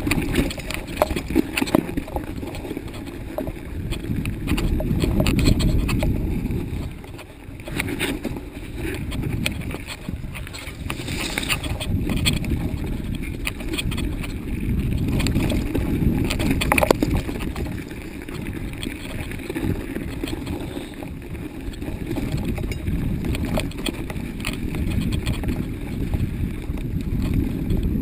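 Wind rumbling on a handlebar-mounted camera's microphone as a mountain bike is ridden over a snowy forest trail, with scattered clicks and knocks from the bike on the rough ground.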